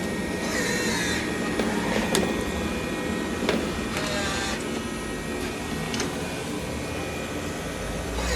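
Robot vacuum-mop running: a steady mechanical whirring with a few sharp clicks and brief changes in pitch.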